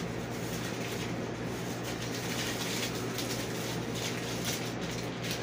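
Steady low hum and hiss of room noise, with no distinct sounds standing out.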